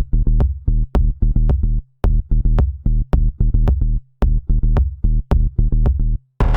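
Electronic outro music: a drum-machine beat with heavy bass, about two beats a second, with fuller layers coming in near the end.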